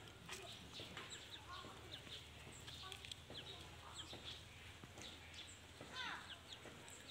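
Faint birds in the background: scattered short chirps, with one louder falling call about six seconds in.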